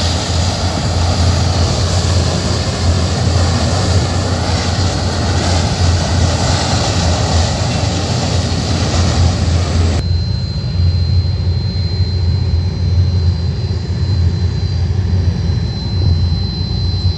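Antonov An-12's four Ivchenko AI-20 turboprop engines running loud and steady as the aircraft rolls down the runway for takeoff. The drone is deep and continuous; about ten seconds in the upper hiss drops away suddenly, leaving the low drone and a thin, steady high whine.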